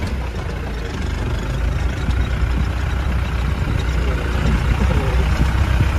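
Off-road jeep's engine running as it drives slowly along a rough forest track: a steady low rumble that grows a little louder after the first second.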